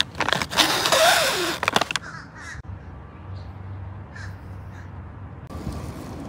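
A loud, harsh animal call that rises and falls in pitch over a noisy rush in the first two seconds, then quieter background with a few faint, brief sounds.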